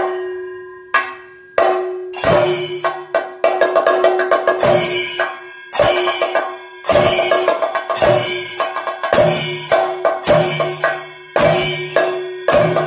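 Thayambaka ensemble of chenda drums played with sticks, loud strokes landing about once a second with rapid strokes between them, and ilathalam cymbals ringing on after the accents.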